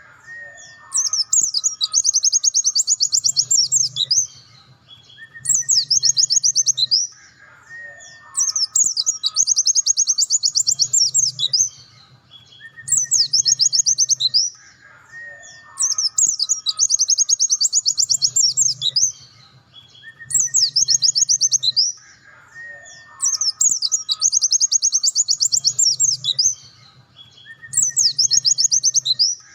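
Pleci dakun (white-eye) singing long, rapid trilled bursts of song in the 'nembak' style, in bouts of two to three seconds. The same sequence of bouts comes back about every seven and a half seconds, as a looped recording does.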